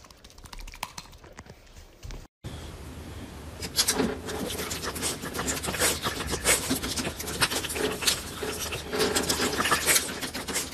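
Faint rustling for about two seconds, then, after a brief break, a dog licking a treat squeezed from a tube: fast, wet smacking and lapping clicks.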